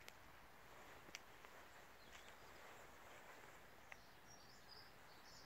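Near silence: faint outdoor background with a few faint ticks and some faint, high bird chirps near the end.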